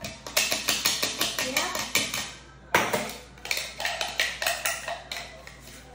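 A metal spoon scraping and clinking inside a small container of dessert, in quick repeated strokes, with one sharper knock a little before the middle.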